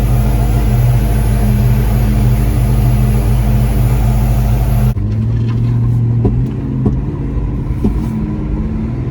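1995 Ford Mustang GT's 5.0-litre V8 running steadily, then, after a cut about halfway through, under way with its pitch rising and falling and a few sharp pops. The engine is popping and short of power, which the owner suspects comes from a failing fuel pump.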